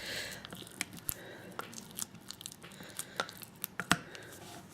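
Metal teaspoon stirring coconut oil and castor oil in a small plastic tub: faint scraping with irregular light clicks of the spoon against the tub wall.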